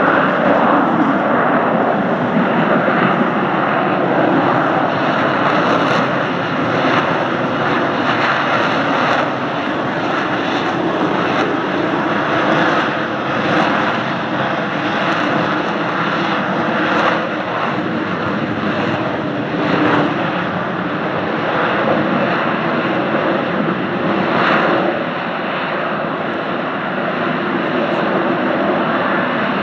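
Fixed-wing aircraft engine running loudly and steadily, with several brief surges along the way.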